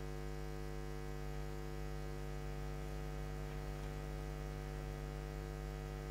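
Steady electrical mains hum with a stack of overtones, unchanging throughout: electrical interference picked up in the recording chain.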